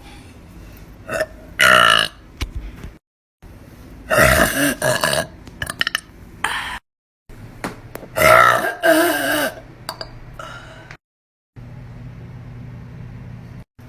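A series of loud burps from girls, one after another in separate short clips: about four big belches, some long and drawn out with a wavering pitch, and a few smaller ones between them.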